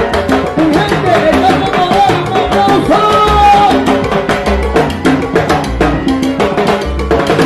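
Live salsa band playing: timbales and a mounted block struck with sticks and a hand-held cowbell keep a busy, even rhythm over congas and an upright bass line, with a pitched melody that bends and slides through the middle.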